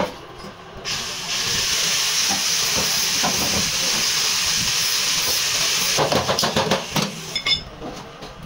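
Steady hiss of compressed air starting about a second in and cutting off abruptly about six seconds in, followed by a quick run of light clicks and knocks.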